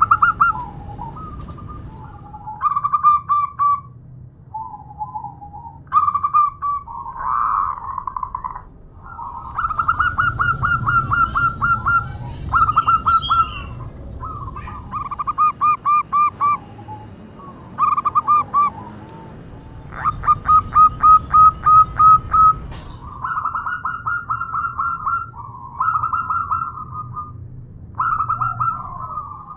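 Zebra dove (perkutut) calling: repeated short phrases of quick, rattling coos, one every second or two. The uploader presents it as a female calling to a male.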